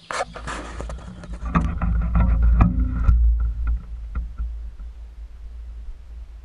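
Low rumble of handling noise on a camera mounted on a compound bow as it is carried along, with scattered knocks and rubs during the first three seconds before it settles to a steadier rumble.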